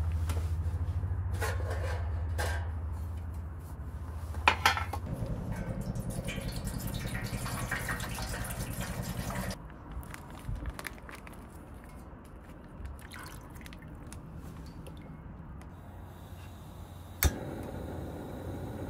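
Broth poured from a plastic pouch into a stainless steel pot, a steady pour of liquid that stops about halfway through. Near the end comes a single sharp click from the portable gas stove's igniter.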